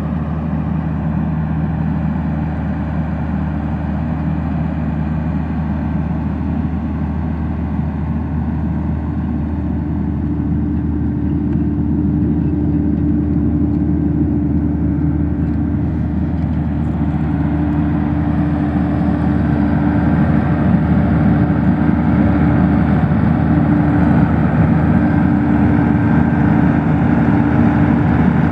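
Large farm tractor's diesel engine running steadily while pulling a manure dragline toolbar and hose, growing louder as it draws near.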